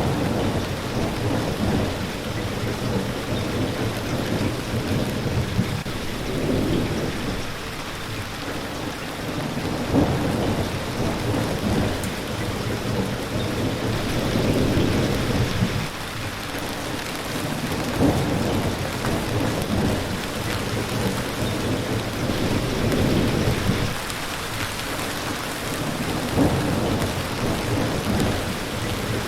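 Steady rain hissing, with low rumbles that swell and fade every few seconds.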